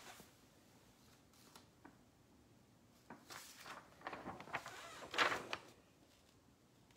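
Faint off-camera handling noise: a series of short scraping, rustling bursts with small clicks, from about three seconds in until nearly six seconds, loudest just after five seconds.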